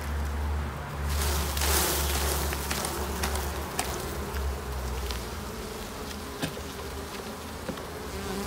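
Honeybees buzzing steadily around an open hive as a frame of honey is lifted out. A brief rush of noise comes about a second in, with a few light clicks.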